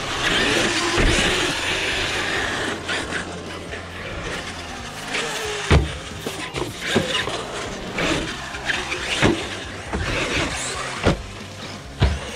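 Electric Traxxas RC monster truck running, its motor and tyres whining for the first couple of seconds. Then a series of hard knocks and clatters as the truck lands and tumbles on the skatepark ramps, the loudest about six seconds in and again near the end.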